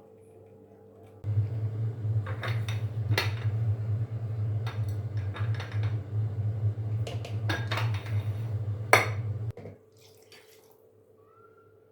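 Dishes and utensils clinking and clattering several times, the sharpest clink about nine seconds in. Under them a steady low rumble starts about a second in and cuts off near the end.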